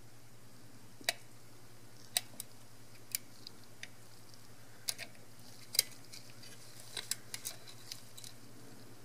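Small sharp clicks and ticks, about a dozen at irregular intervals, the loudest a little past the middle, as a small tool pries flat ribbon cables out of compression-type connectors (no locking bar) on a Canon EOS 6D circuit board. A faint steady hum runs underneath.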